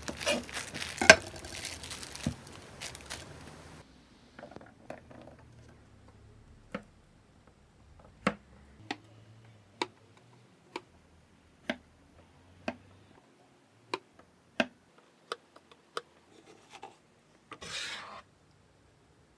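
Plastic packaging of an enoki mushroom pack crinkling as a knife cuts through it, then a chef's knife slicing garlic cloves on a wooden cutting board, single knocks about once a second. A short rustling scrape near the end.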